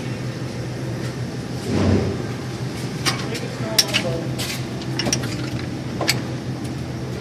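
Metal hand tools clinking and clicking, a handful of separate clinks, with a brief low rumble about two seconds in, over a steady low hum.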